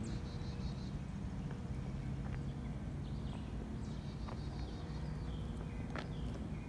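A songbird in the woods singing short, high, fast trills a few times, over a steady low rumble. A couple of sharp clicks stand out briefly.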